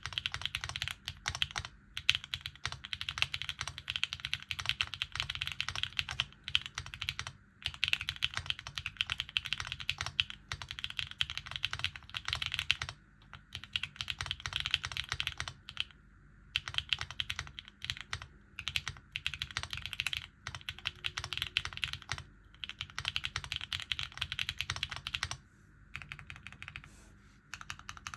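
Typing on a Mode Designs Tempo HHKB-layout custom mechanical keyboard with HMX Macchiato switches, gasket-mounted with an FR4 plate and plate and case foam. Rapid keystrokes come in runs of several seconds, broken by short pauses.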